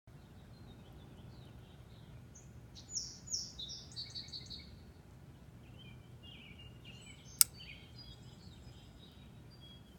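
Birds chirping, a run of quick falling calls about three seconds in and more scattered calls later. About seven and a half seconds in comes one sharp click, the loudest sound: the John Gray Bloodshark flipper folding knife's blade snapping shut into its handle.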